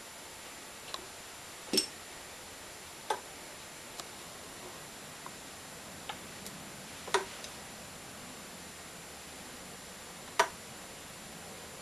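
Scattered sharp metallic clicks and light taps from a top compression ring being fitted onto a small-block Chevy piston, with the three loudest about 2, 7 and 10 seconds in, over a faint steady hiss.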